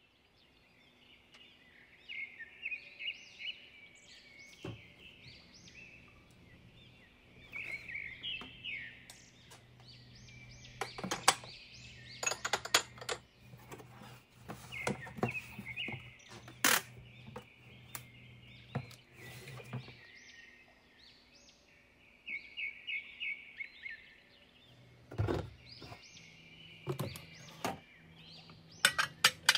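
Glass dishes clinking and knocking against each other and against a shelf as glassware is handled from a cardboard box and stacked in a cupboard. Over it, small birds chirp in quick repeated bursts in the background.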